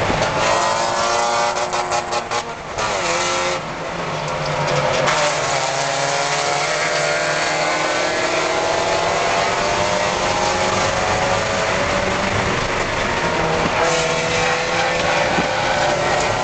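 Spec Miata race car's four-cylinder engine heard from inside the cockpit at racing speed. The note falls and stutters as the car slows about two to three seconds in, then climbs steadily for about ten seconds under full throttle, dips at an upshift near the end and climbs again.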